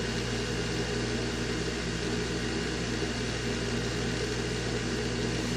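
Aoyue 968A+ rework station's hot-air blower running with a steady hum, pushing air through the hot-air gun as it heats up toward 480 degrees.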